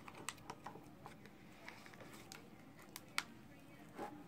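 Slime being kneaded and squeezed by hand in a plastic tub: faint, irregular little clicks and pops, with one sharper click about three seconds in.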